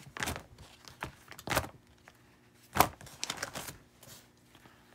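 Plastic card-sleeve pages in a ring binder being turned: several short crinkles and flaps of stiff plastic, the sharpest just under three seconds in.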